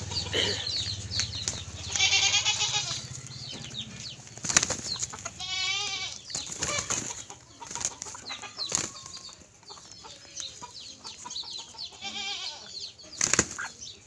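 Chickens fighting: hens squawking and clucking, with scuffling and wing flapping. A loud harsh squawk about two seconds in and a long wavering call around six seconds stand out.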